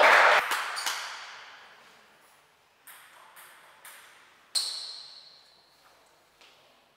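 A loud shout echoing in the hall fades away over the first two seconds. Then a table tennis ball clicks on the table: a few light bounces around three seconds in, a sharper ringing ping about four and a half seconds in, and a couple of fainter taps near the end.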